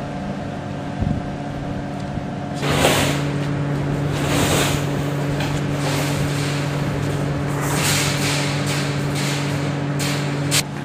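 An engine running with a steady low hum that starts suddenly about three seconds in, with three swells of hissing noise over it and a sharp click near the end.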